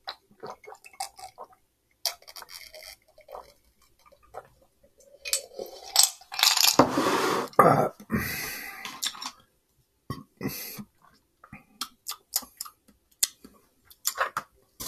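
A long burp starting about five and a half seconds in and lasting about three seconds, after gulping iced tea from a mug. Light clicks and taps of a ceramic mug and chopsticks on a plastic takeout container come before and after it.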